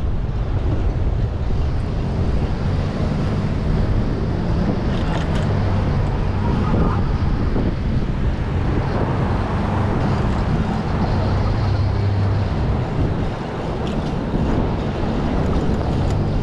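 Wind rumbling steadily over the microphone of a camera riding on a moving bicycle. Passing motor traffic adds a low engine hum now and then, most clearly in the middle of the stretch.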